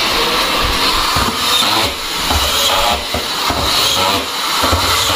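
Continuous din of factory-floor machinery with hiss, fairly loud, with the level dipping briefly now and then.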